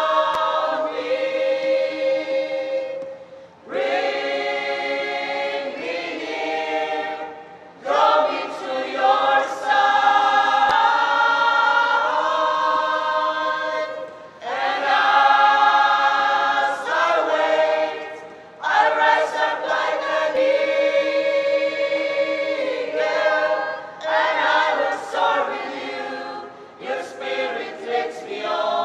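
Mixed choir of men's and women's voices singing together in phrases of long held notes, with short breaks for breath every few seconds.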